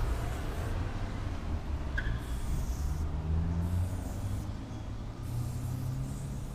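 Aerosol spray-paint can hissing in about four short bursts of a second or less, with brief pauses between strokes, over a steady low rumble of street traffic.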